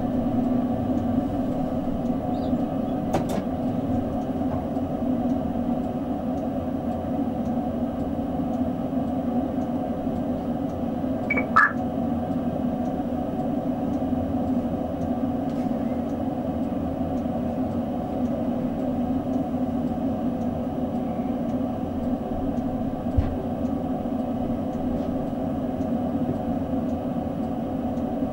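Steady electrical hum inside the driver's cab of a Hamburg S-Bahn electric train standing at a platform. A short high chirp sounds about eleven seconds in.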